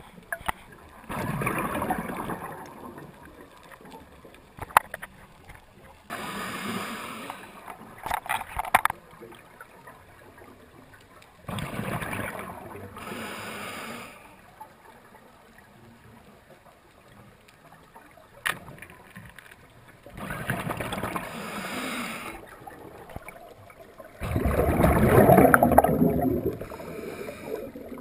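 Water rushing and gurgling against an underwater camera housing in about five bursts of two to three seconds, the loudest near the end, with a low hiss and a few sharp clicks between them.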